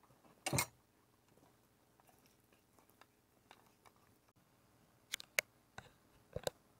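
A handful of sharp clicks and knocks over a faint, quiet background: one about half a second in, then four more in quick succession between about five and six and a half seconds in.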